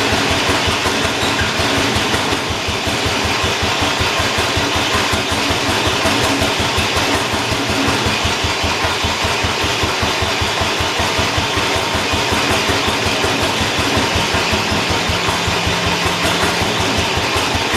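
John Deere 212 lawn tractor's Kohler single-cylinder engine running steadily and fast, with a rapid, even beat of firing strokes. It is over-revving, which the owner puts down to the throttle arm needing adjustment.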